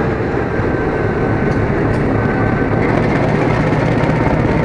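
Diesel locomotive running loud and steady as it pulls away, its engine giving a deep low hum.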